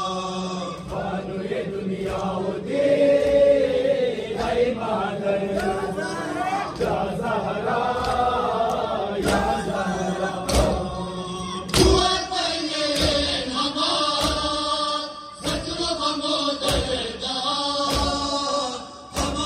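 Men's voices chanting a nauha, a Shia lament, together. From about nine seconds in, the chanting is joined by loud chest-beating slaps of matam in unison, about once every 1.2 seconds.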